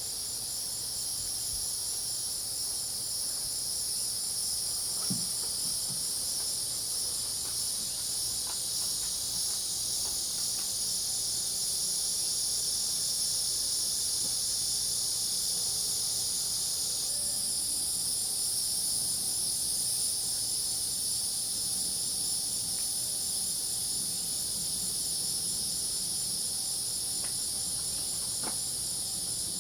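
Dense chorus of crickets and other night insects: a steady, high-pitched trilling with a fine pulse in it. A little over halfway through, one pulsing trill stops and the chorus changes tone.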